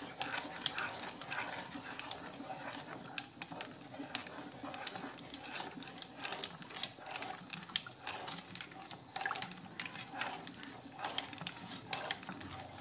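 Wooden spoon stirring a thin cocoa-and-milk mixture in a speckled stone-coated non-stick saucepan, with quick, irregular scrapes and light clicks against the pan's bottom and sides.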